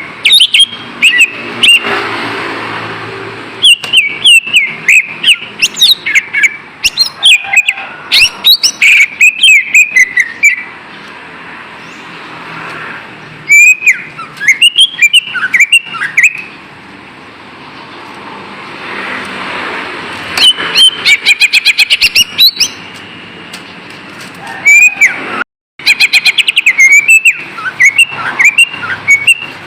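Greater green leafbird (cucak ijo) singing: about five loud bursts of fast, sharply gliding whistles and chirps, with short pauses of steady background hiss between them.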